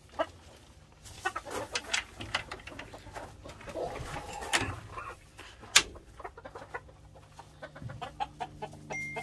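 Gamecocks clucking in their pens, with scattered knocks and rattles from the wooden pen door and one sharp click from its latch a little past halfway through.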